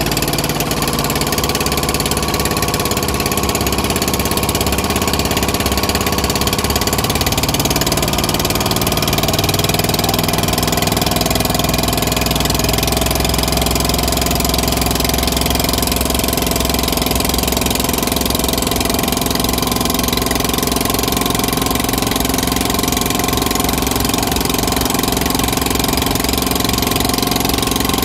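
Boat engine running steadily under way, a continuous mechanical drone with a knocking edge.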